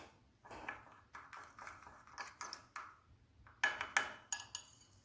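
A tablespoon scraping and tapping on a small dish while honey is spooned in: soft strokes about three a second, then a few sharper ringing clinks near the end.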